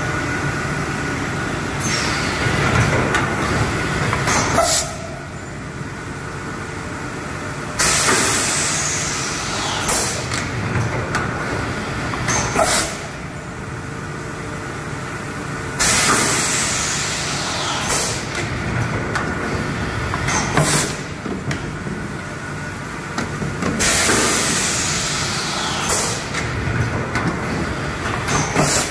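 Automatic single-cavity PET blow moulding machine cycling on 10-litre jars, about one jar every eight seconds. Each cycle is a sudden loud hiss of compressed air ending in a short sharp blast, then quieter running, with a steady machine hum throughout.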